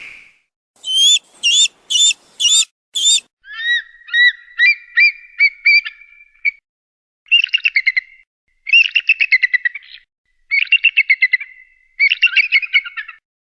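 Eagle calling in high, thin notes: five short sharp calls, then a quicker run of notes, then four bursts of rapid chittering trills.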